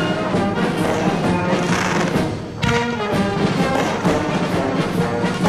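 Orchestral music with brass and sustained notes. It dips briefly about two and a half seconds in, then swells back.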